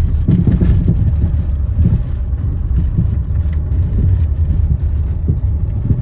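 Car cabin noise while driving on a country road: a steady low rumble from the road and engine, with frequent small irregular knocks and rattles. Such a light knocking from the suspension is what the occupants suspect could be a worn stabilizer link (bieleta), typical of cars driven on rural roads.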